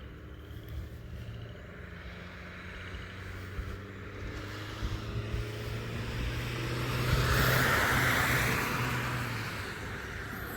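A road vehicle driving past on the highway, its engine hum and road noise growing louder to a peak about three-quarters of the way through, then fading.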